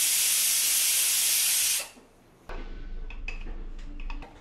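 Aluminium pressure cooker venting steam through its weight valve in a loud, steady hiss, releasing its pressure before opening; the hiss cuts off about two seconds in, followed by a few light clicks.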